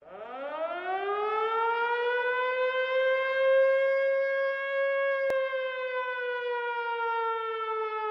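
Air-raid siren winding up over about two seconds into one long held tone that slowly sags in pitch. A faint click about five seconds in.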